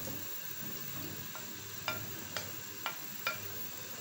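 Fried potato wedges being tipped and pushed off a ceramic plate into an aluminium pressure cooker of chicken curry cooking in its spices. A soft, steady sizzle runs under five sharp clinks of the plate and utensil, in the second half.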